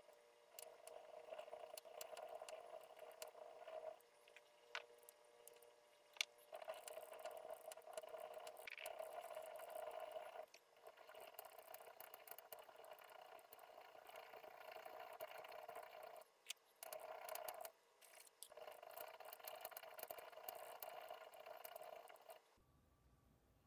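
Faint rasping of a triangular hand file worked back and forth over a small steel part, shaping the half-dovetail lug of a rifle bolt ejector. The strokes come in runs of several seconds with brief pauses and stop about a second before the end.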